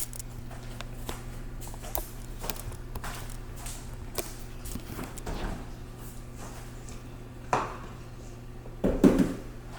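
Scattered light clicks and knocks of things being handled in a kitchen, with a couple of louder bumps near the end, over a steady low hum.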